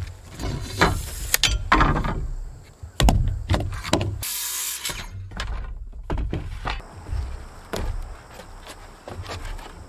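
Lumber being handled on a plywood roof deck: a string of wooden knocks and clatters, with a short burst of hiss about four seconds in.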